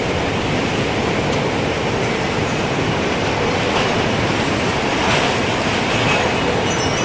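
Strong wind rushing steadily with a deep rumble, gusting up about two-thirds of the way through, with faint high wind-chime tinkles near the end.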